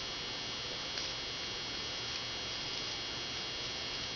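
Steady electrical hum and hiss, with a faint click about a second in.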